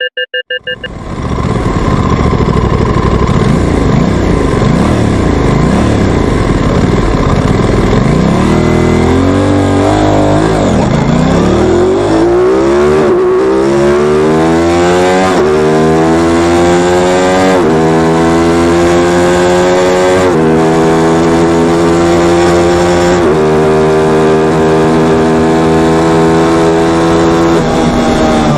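Sport motorcycle accelerating hard at full throttle, its engine pitch climbing and dropping sharply at each of several upshifts every two to three seconds.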